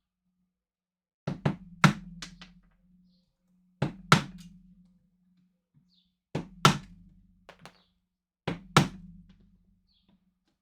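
Hammer blows chipping away material in four groups, about two seconds apart. Each group is a lighter tap followed by a harder strike, with a short low ring after.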